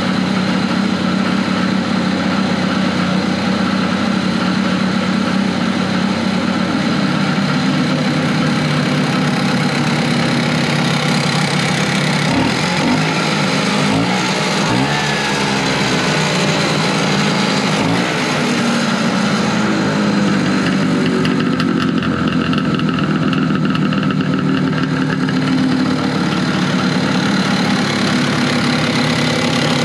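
1970 Evinrude Skeeter snowmobile's opposed two-cylinder two-stroke engine running steadily at idle, revved up and down a few times about halfway through. It runs healthily, with a crisp pop.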